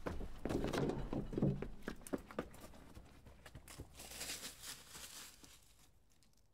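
Footsteps crunching and scuffing on a stony dirt trail, irregular and close, over a low rumble of wind on the microphone; it dies away about five and a half seconds in.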